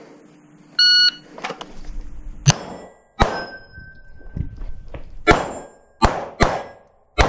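Shot-timer beep about a second in, then six pistol shots at uneven spacing over the next six seconds. Hit steel plates ring faintly after some of the shots.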